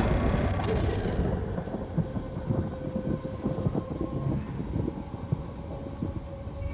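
A low, rattling rumble made of many close clicks, with a faint steady hum, slowly easing off: a film sound-design effect.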